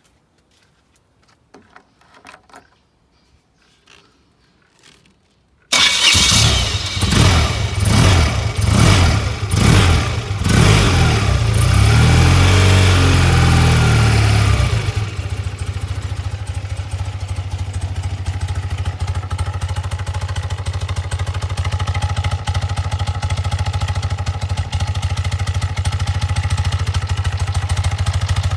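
BMW R100RS air-cooled flat-twin engine, breathing through a hollowed-out exhaust collector box and the stock silencer. After a few faint clicks it starts up about six seconds in and revs unevenly for several seconds. It then settles to a steady idle about halfway through.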